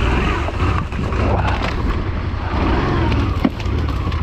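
Honda Transalp motorcycle engine running while being ridden off-road, with a sharp knock about three and a half seconds in.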